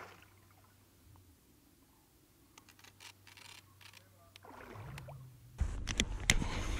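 Mostly quiet, with a few faint ticks; about two-thirds of the way through, close handling noise of a baitcasting reel and rod sets in, with several sharp clicks and rubbing as the lure is retrieved.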